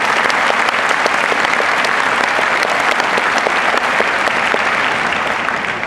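A large audience applauding, many hands clapping together in a dense, steady stream that begins to die down near the end.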